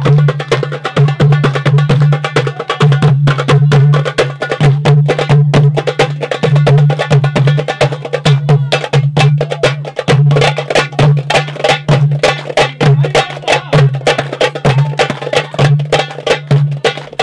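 Several goblet drums (darbukas) played together in a fast, dense rhythm, deep low strokes mixed with sharp, crisp slaps.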